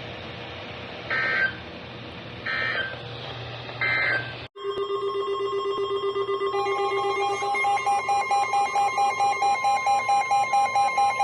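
Weather alert radios tuned to NOAA Weather Radio. First come three short SAME digital data bursts about a second apart, the buzzing codes that end the warning message. After a brief break, a steady alert tone starts for the next severe thunderstorm warning. About two seconds later the radios' own alarms join it, beeping rapidly, three or four times a second.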